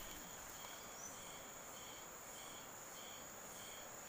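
Insects calling steadily: a continuous high-pitched drone with a softer chirp repeating about twice a second.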